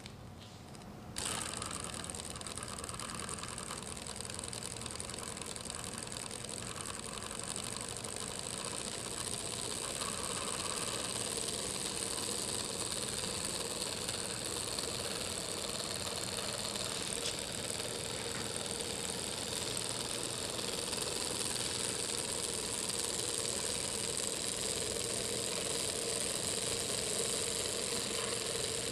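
Miniature vertical Stirling engine, hot-air driven by an alcohol burner, catching about a second in after its flywheel is flicked and then running steadily and fast. Its flywheel, crank and pistons make an even mechanical running sound that grows slightly louder.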